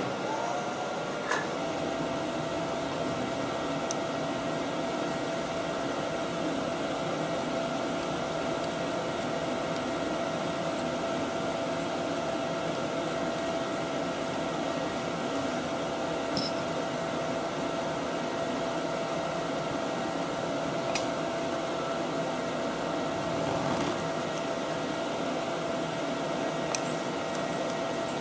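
Steady mechanical hum and hiss with a thin steady whine-like tone that comes in about a second and a half in, and a few faint clicks.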